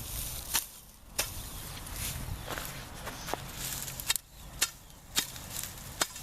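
A series of about nine sharp knocks or chops at an irregular pace, roughly one or two a second.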